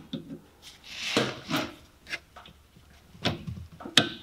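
A screwdriver clicking and scraping against the handbrake lever and return spring of a car's rear brake caliper as the spring is levered into place, with several short clicks and a sharp, loudest click near the end.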